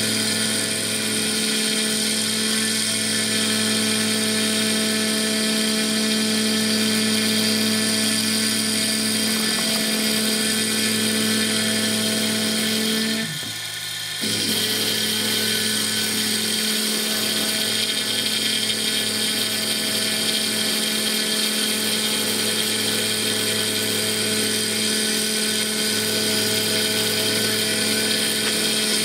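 CNC mill's end mill cutting a Stone Hopea burl wood ring blank: a steady machine whine made of many held tones over a hiss. The sound drops out briefly about halfway through, then resumes the same.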